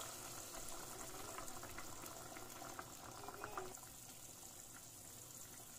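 Hot water poured from a kettle into a pot of hot tomato sauce, the liquid splashing and bubbling faintly. The pouring stops a little under four seconds in, leaving the pot simmering quietly.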